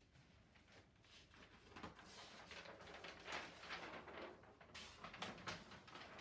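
Large flip-chart paper sheet rustling and crinkling as it is lifted and turned over the top of the easel, an uneven run of crinkles that builds over a few seconds.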